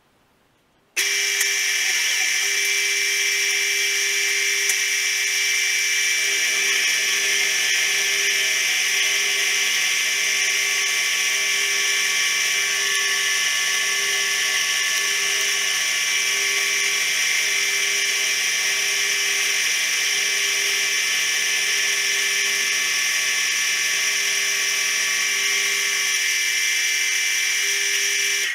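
A milling machine running, its end mill cutting into a metal T-nut blank in the vise under flowing coolant: a steady whine made of several steady tones. It starts suddenly about a second in; a lower hum joins about six seconds in and stops a couple of seconds before the end.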